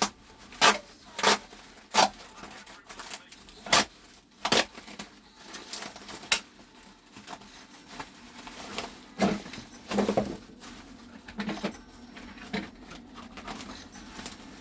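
Packaging being handled and torn open: a run of sharp snaps and clicks, closely spaced in the first few seconds, then softer knocks and rustling.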